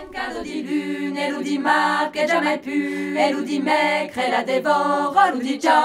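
A cappella choir singing: one low note held steady beneath several voices moving in harmony above it.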